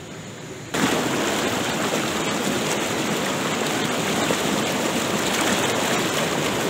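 Swift river rapids rushing over rocks, a loud steady rush of white water that starts abruptly less than a second in, after a brief quieter lapping of calm water.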